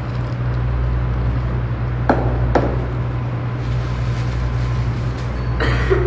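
Two sharp knocks about half a second apart from a stainless steel mixing bowl as batter is scraped out of it into a piping bag, over a steady low hum.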